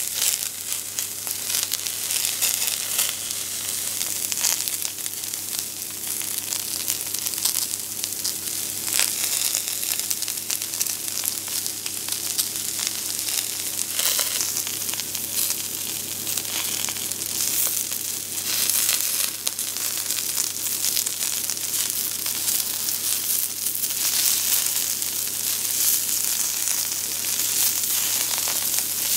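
Halved Brussels sprouts frying cut-side down in hot oil in a stainless steel pot. A steady sizzle runs throughout, with scattered crackles and pops as the cut faces brown.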